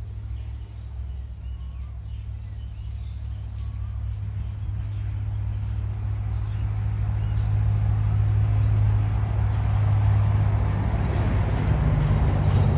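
A motor vehicle's engine running with a low hum that grows steadily louder as it draws near, turning fuller and noisier about eleven seconds in. Faint bird chirps can be heard in the first few seconds.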